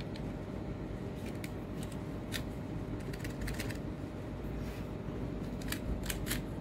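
Light rustling and a few sharp clicks from handling a small packet of sewing-machine needles, with a cluster of clicks near the end, over a steady low hum.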